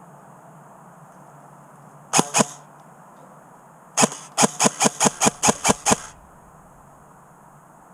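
Airsoft gun firing: two quick shots a little over two seconds in, then a string of about ten shots at about five a second, about four seconds in.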